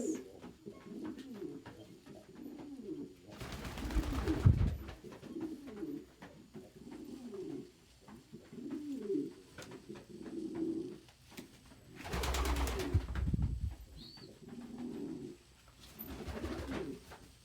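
Domestic pigeons cooing over and over, short low coos overlapping each other. Two louder bursts of rustling noise come about three and twelve seconds in.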